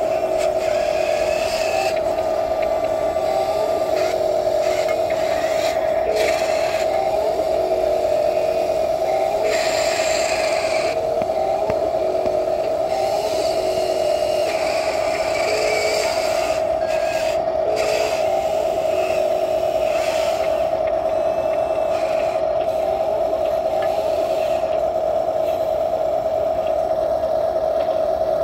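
Electric motors and gearboxes of radio-controlled construction models whining steadily at one high pitch, with shorter lower whines starting and stopping every second or two as the wheel loader and other machines move.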